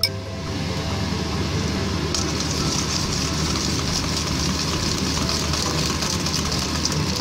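Wire balloon whisk beating a liquid egg mixture in a metal bowl: a fast, steady clatter and swish of the wires against the bowl and through the liquid, turning brighter and hissier about two seconds in.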